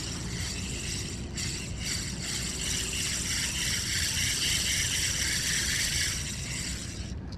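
Ryobi Ultrapower 1000 spinning reel being cranked on a lure retrieve, its gears whirring steadily, strongest from about a second in until near the end. A low steady rumble lies underneath.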